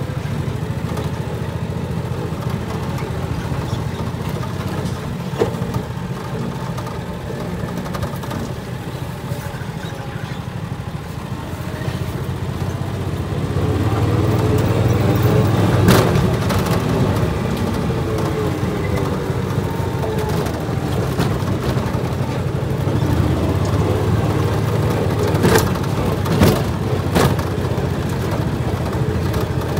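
A John Deere Gator utility vehicle's engine running as it drives, heard from the driver's seat. It gets louder about halfway through, and a few sharp knocks and rattles sound over it.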